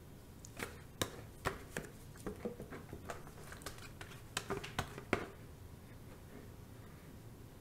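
Light, irregular clicks and taps of a spatula scraping and knocking the last of the soap batter out of a plastic pitcher into the mold, stopping about five seconds in.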